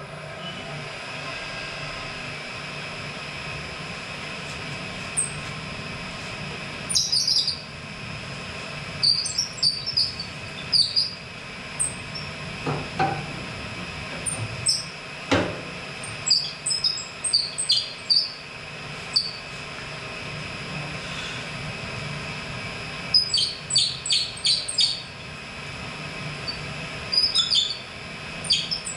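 Wood lathe running with a steady hum as the bowl blank spins. Short high-pitched chirps come in clusters from about seven seconds in, the loudest sounds.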